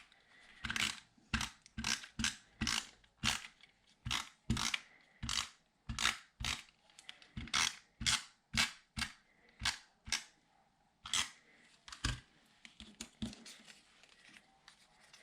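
A run of short, crisp strokes from hand work on paper and craft supplies, about two a second at an uneven pace, growing fainter near the end.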